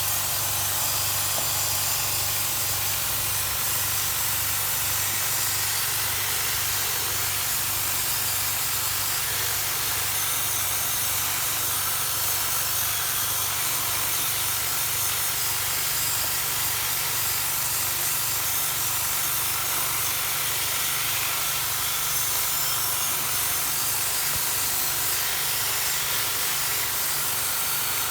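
Steady spraying hiss over a low motor hum with a fast pulsing beat, typical of a pressure washer spraying water through an air conditioner during cleaning.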